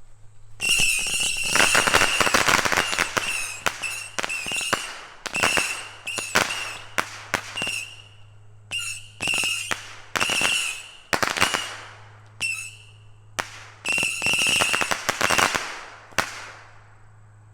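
A Sky Song 100-shot Saturn missile battery firing: one burst after another of small whistling missiles, each whistle ending in a sharp crack. The bursts begin about half a second in, come in uneven volleys, and stop shortly before the end. It is loud, with reports on every shot.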